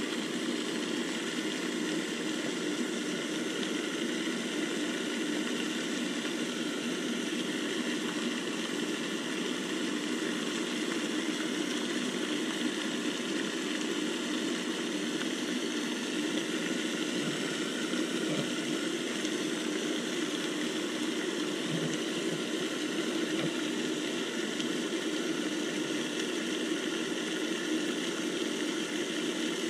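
A steady machine-like hum over a hiss, unchanging throughout.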